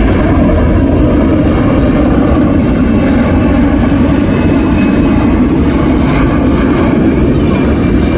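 Boeing C-17 Globemaster III's four turbofan jet engines running loud and steady as the transport passes low overhead, a faint high whine over the rumble.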